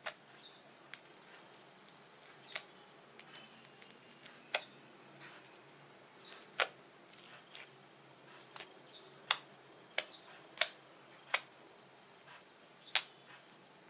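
Fluffy slime being squeezed and stretched by hand, giving sharp, irregular clicks and pops as air pockets in the slime burst, about nine loud ones among smaller crackles.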